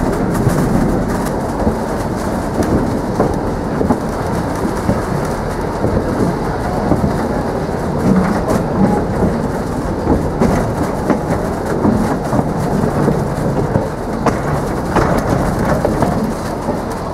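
Steady rumble and rattle of a narrow-gauge field-railway passenger car rolling along 800 mm track, with scattered clicks from the wheels and the wooden car.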